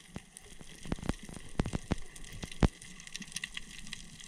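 Underwater sound picked up by a submerged action camera: a faint steady crackle with scattered sharp clicks, the loudest about two and a half seconds in.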